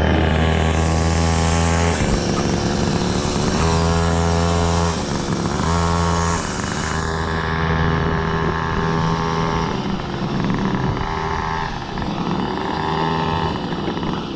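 Small go-kart engine running and revving in repeated bursts, the throttle opened and eased off every second or two so the pitch rises and drops.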